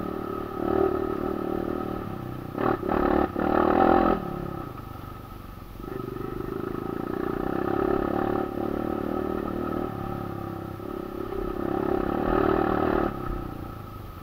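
Kawasaki KLX 150 trail bike's single-cylinder engine running under throttle on a rocky dirt track, with a few sharp knocks and clatter around three to four seconds in. The engine eases off for a couple of seconds, pulls steadily again, rises once more and then eases off near the end.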